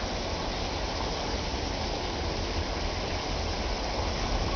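Steady outdoor background noise: an even hiss over a low, fluctuating rumble.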